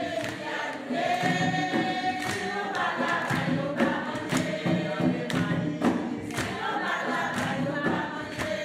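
A group of people singing together unaccompanied, with hand claps sounding along with the song.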